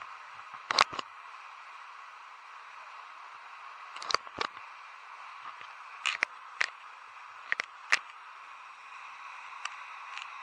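Steady rushing of a waterfall, with about a dozen sharp knocks and clicks, mostly in pairs, scattered through it.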